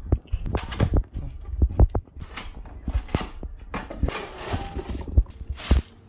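Cardboard packaging and clear plastic wrap being handled while a frying pan is unboxed: a quick run of sharp crackles and taps, with a longer crinkly rustle about four seconds in and another near the end.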